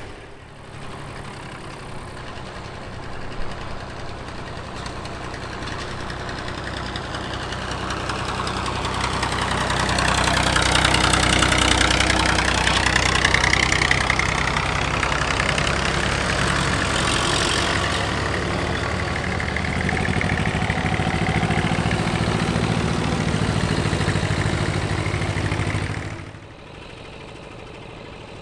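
Vintage tractor engines running steadily as tractors drive slowly past one after another. The sound swells to its loudest about ten to fourteen seconds in as one passes close, stays fairly loud as the next goes by, and drops away suddenly near the end.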